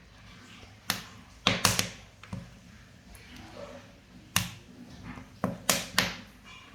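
Wood fire burning in a wood-fired cooking stove, crackling: sharp pops over a soft hiss, several of them coming in quick clusters of two or three.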